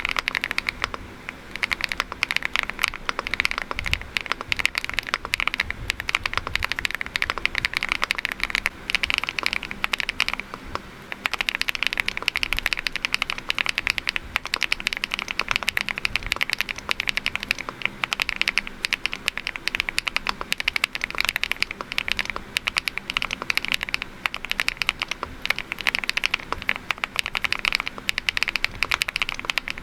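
Rapid continuous typing on a Rainy 75 mechanical keyboard with a PP plate, fitted with HMX switches: the EVA switches, then the HMX Macchiato switches after a brief pause about ten seconds in. The sound is a dense run of quick keystroke clacks.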